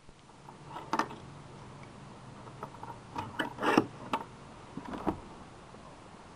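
Metal barrel bolt on a wooden door worked by hand: metallic clicks and a short scraping slide. One click comes about a second in, a cluster with the loudest slide follows past the middle, and two more clicks come near the end.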